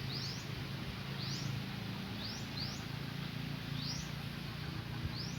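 Short high bird chirps, single or in quick pairs, repeating about once a second over a steady low hum.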